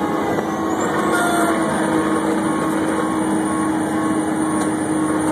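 Fire engine driving, heard from inside the cab: a steady engine drone under loud road noise, with a siren's tone slowly sliding down in pitch over the first few seconds.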